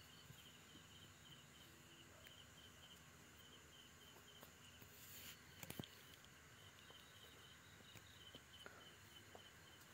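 Near silence, with faint night insects chirping in a steady pulsing pattern and a few faint clicks about six seconds in.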